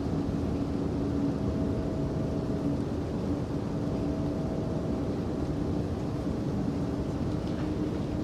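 A steady low mechanical rumble with a constant faint hum, unchanging throughout.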